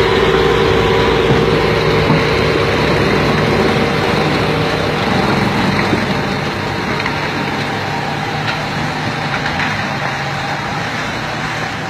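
Heavy tractor engine running steadily under load while towing a Scania truck, gradually getting quieter.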